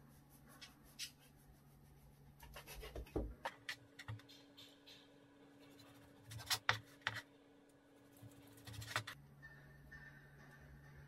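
A kitchen knife sawing through the crusts of a stack of white sandwich bread slices on a plastic cutting board, in three short bouts of scratchy strokes. A faint steady low hum runs underneath, with a second, higher hum joining in the middle.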